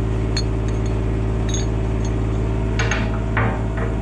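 An engine idles steadily throughout, with a few short clinks and knocks over it, the loudest about three seconds in, some of them briefly ringing.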